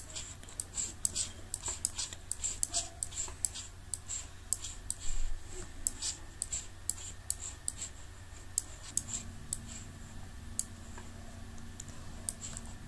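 Irregular light clicking of a computer mouse, several clicks a second at first and thinning out after about seven seconds, over a steady low hum.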